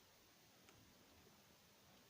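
Near silence: a faint steady hiss, with one tiny click about a third of the way in.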